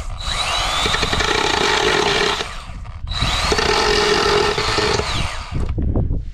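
Small handheld chainsaw cutting into a plywood board in two runs of about two and a half seconds each, with a brief pause between them. Each time, the motor's whine rises as it spins up and falls away as it stops.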